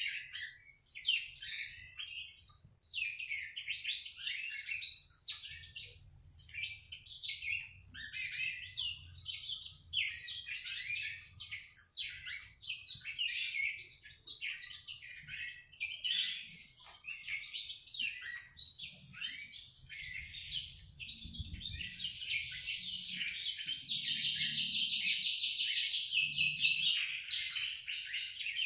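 Young black-throated canary (blackthroat) singing a continuous, fast twittering song: the rambling 'ngriwik' chatter of a young bird still learning its song. About 24 s in, it runs into a long unbroken rapid trill.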